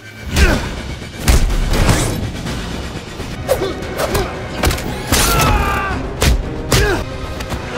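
Film fight sound effects: a rapid string of heavy punches and blows with grunts of effort, over dramatic score music.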